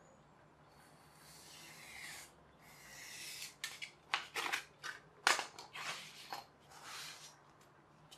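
A snap-off craft knife drawn through a polystyrene foam pizza tray along a steel ruler: two scratchy cuts, each rising as the blade is pulled, then a run of sharp crackles and creaks from the foam for a few seconds.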